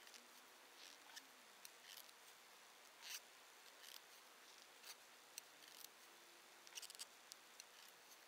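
Faint, irregular clicks and light scrapes of metal straight knitting needles against each other as stitches are knitted, over near-silent room tone.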